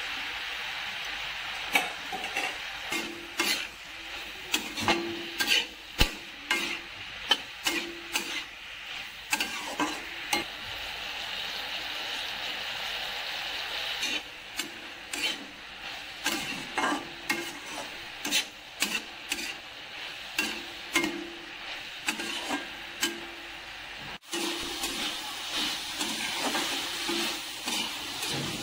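Cabbage stir-frying in a hot metal wok: a steady sizzle, with a metal spoon scraping and clacking against the pan in quick, irregular strokes as the vegetables are stirred and tossed.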